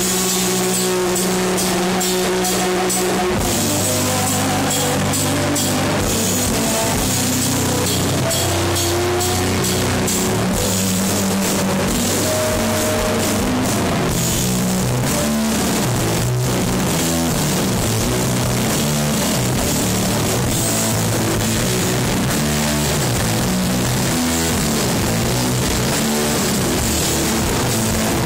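Live heavy metal band playing an instrumental passage: distorted guitar and bass riff over a drum kit with cymbals. A held chord rings for about three seconds before the full band comes in.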